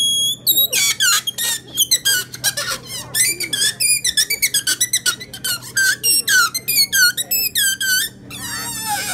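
Rubber balloon squeaking in a quick run of short squeaks that slide in pitch, several a second, ending in a fast warbling squeal.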